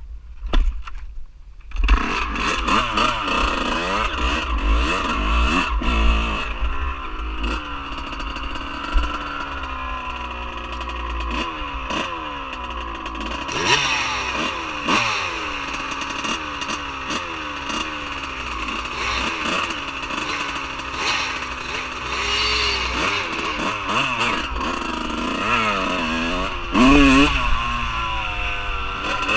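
Dirt bike engine on the move, its pitch repeatedly rising and falling as the throttle opens and closes and the rider shifts gears, with wind rumbling on the microphone. The first two seconds are quieter, with a few knocks before the engine sound takes over.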